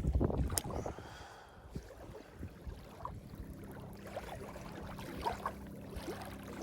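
Low rumble of wind and handling on the microphone that dies away within the first second, with a sharp click. About three seconds in a faint, steady low hum sets in, with scattered small clicks over it.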